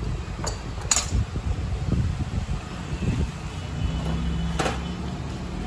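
Plastic Canon inkjet cartridges clicking and knocking as they are handled and set down on a workbench: sharp clicks about half a second in, about a second in and near the end, over a low steady rumble.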